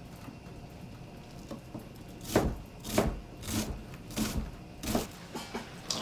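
Chef's knife chopping a white onion on a plastic cutting board. About two seconds in, short sharp knife strikes begin, about eight of them, roughly two a second.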